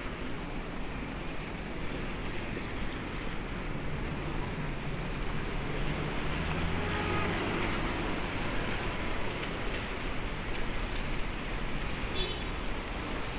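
Rainy city street traffic: tyres hissing on wet asphalt over a steady traffic hum. A van's engine passes close, swelling from about four to eight seconds in.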